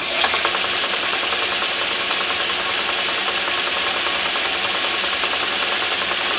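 Half-inch twist drill boring into a spinning brass piston blank in a lathe: a steady, harsh scraping hiss of the cut, with a thin high whine running through it.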